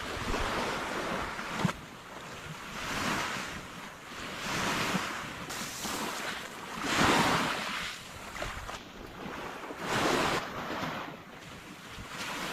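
Sea waves breaking and washing up the beach in repeated swells, the loudest about seven seconds in, with some wind on the microphone.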